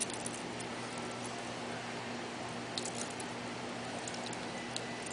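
A few faint clicks of Lego plastic pieces being handled, over a steady background hiss.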